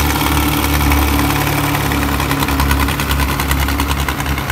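Diesel tractor engines working under load, a Mahindra Arjun 605 among them, as a loaded trolley is pulled out of soft sand with a chain tow. The steady low engine note carries a rapid, even clatter that stands out more from about halfway.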